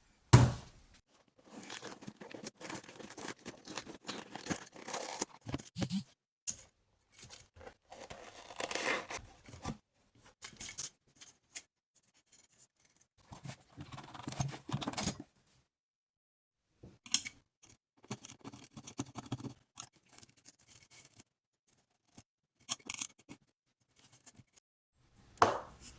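Hands working an RC car wheel and tyre: irregular spells of scraping, tearing and snipping, a second or two each with quiet gaps between, with a sharp knock right at the start.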